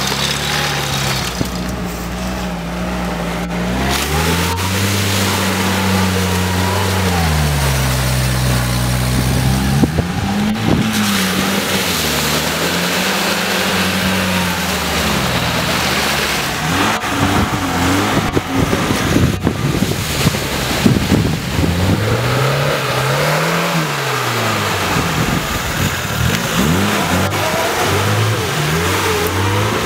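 Off-road 4x4 engines revving up and down under load while driving through deep mud, the pitch rising and falling several times. In the second half there is an irregular slop and spatter of mud and water from the tyres.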